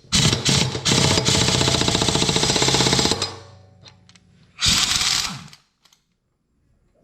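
Air impact wrench hammering as it tightens the blade bolt on a Toro 21-inch mower. A rapid, even rattle runs for about three seconds and stops, then a shorter burst of about a second comes near the middle.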